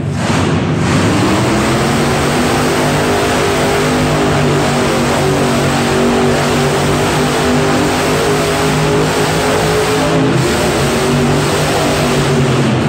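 Monster truck engine revving hard and held at high revs, a loud steady engine note that climbs in pitch about a second in and then wavers up and down.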